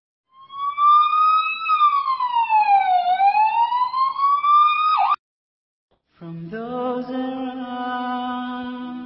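Emergency siren wailing in one slow sweep: the pitch climbs a little, dips low in the middle and climbs again, then cuts off suddenly. After a second of silence, music with a held low drone begins.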